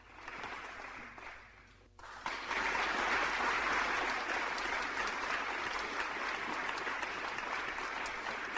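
Applause after a song ends: clapping that fades to a brief break near two seconds in, then resumes, steady and louder.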